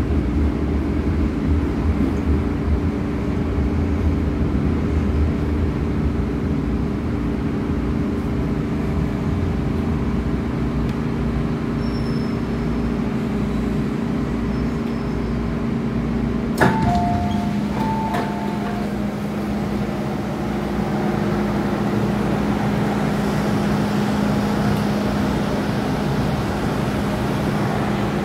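Steady running hum and rumble of an MTR M-Train electric multiple unit heard from inside the car as it travels along the track. About two-thirds of the way through there is a sudden sharp click, then a short two-tone electronic chime.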